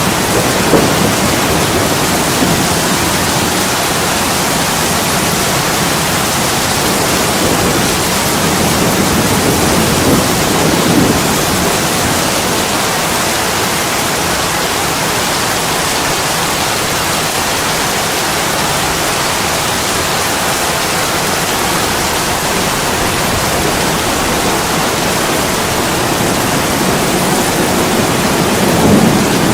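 Heavy rain pouring steadily on an attic window, a dense even hiss. A low rumble of thunder swells briefly near the middle and begins to build again near the end.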